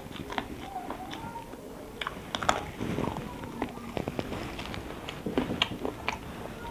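Close eating sounds: chewing with the mouth, then fingers mixing rice and curry on a plate, making a run of small clicks and squelches. A few faint short tones sound in the background.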